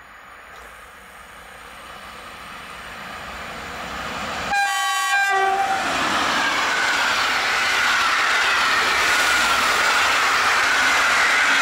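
An EP08 electric locomotive and its InterCity passenger coaches approach at full speed. The locomotive sounds its horn once, for about a second, a little under five seconds in. The train then rushes past with loud wheel-on-rail noise and a whine that slowly falls in pitch.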